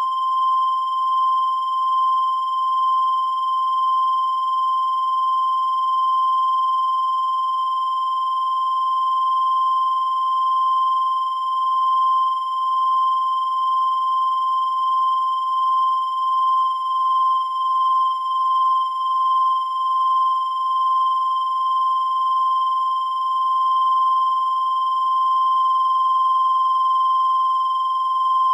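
A continuous high-pitched electronic tone held at one pitch, its loudness wavering slightly.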